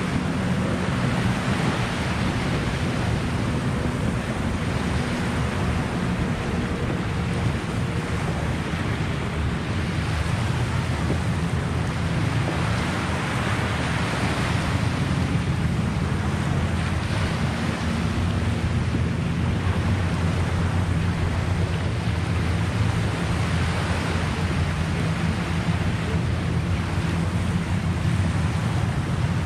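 Steady wind rumbling on the microphone in gusts, with small lake waves washing on the shore underneath.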